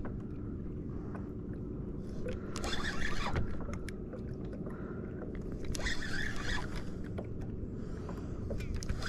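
Spinning-reel drag buzzing in short bursts, roughly every three seconds, as a strong fish pulls line off against the angler's thumb on the spool.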